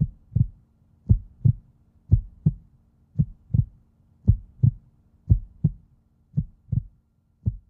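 Slow heartbeat-like sound effect: deep double thumps, a pair about every second, over a faint steady hum.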